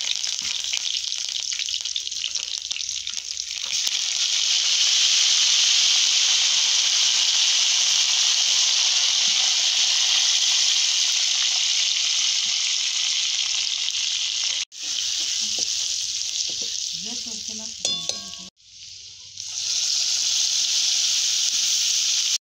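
Hot oil sizzling loudly in a steel kadhai as leaves, a green paste and spices fry in it. The sizzle grows louder about four seconds in and cuts out sharply twice, about fifteen and nineteen seconds in.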